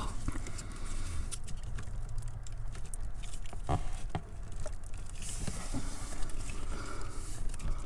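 Hands working a plastic fuel pump relay into its wiring connector under a car's dashboard: scattered light knocks and handling rustle, with no clear latching click, over a low steady rumble.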